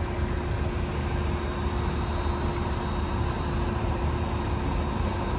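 Steady low rumble of idling diesel utility trucks, with a steady hum running under it.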